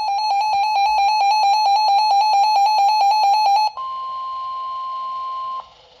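Reecom weather alert radio going off for a flood warning: rapid, loud beeping at one pitch that cuts off about three and a half seconds in, followed by the steady NOAA Weather Radio warning alarm tone over faint radio hiss for about two seconds, which then stops.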